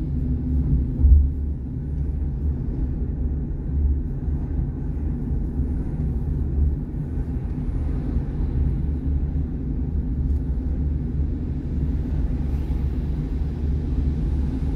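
Steady low rumble of a car being driven, heard from inside the cabin, with a brief low thump about a second in.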